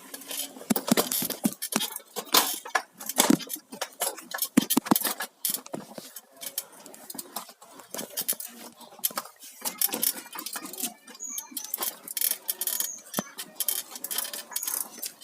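Rapid, irregular metallic clinks and rattles from a bicycle being ridden, jolting over an uneven surface.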